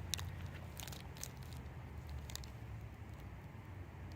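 Faint handling sounds of watch packaging: a few light clicks and taps scattered over a low steady room hum.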